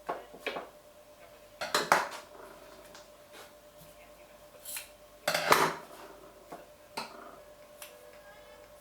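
Dishes and metal utensils being handled, clinking and clattering in a few short bursts, the loudest just after the middle.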